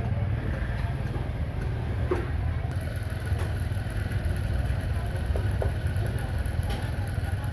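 Busy street-market ambience: motorbike engines running with a steady low rumble, and people's voices in the background.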